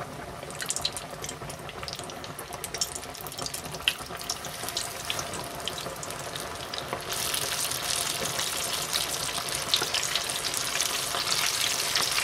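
Breaded chicken deep-frying in a pot of hot oil: a dense sizzle full of fast crackles and pops, which grows suddenly louder and brighter about seven seconds in.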